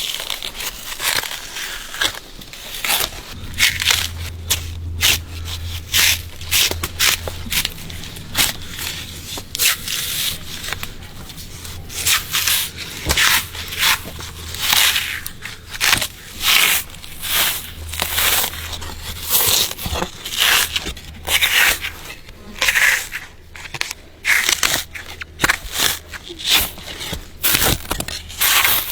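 Bark being peeled off a Phellodendron (huang bai) trunk by hand: a long run of short tearing, crackling pulls, one every half second to a second. A low steady hum runs underneath from a few seconds in.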